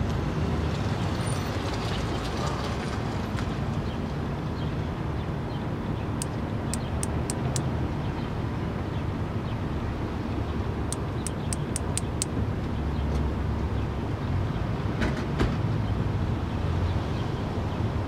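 Male Platypedia putnami cicada clicking its wings, the species' mate call: two quick runs of five or six sharp, high clicks, about a third of the way in and again about two-thirds in, over a steady low rumble.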